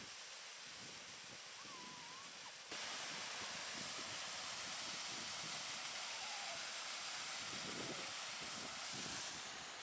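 Small waterfall splashing into a pool: a steady rushing hiss that jumps louder about three seconds in and eases back near the end.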